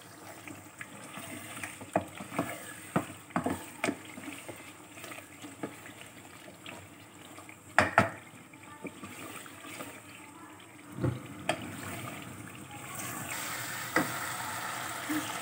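Wooden spoon stirring meat and spice paste frying in oil in a metal pot, knocking against the pot again and again with the loudest pair of knocks about eight seconds in, over a steady sizzle that grows louder near the end.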